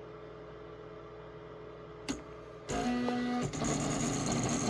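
Anycubic 3D printer: a quiet steady hum, a sharp click about two seconds in, then the stepper motors start moving with a pitched whine that turns into a louder, noisier running sound with a high steady tone.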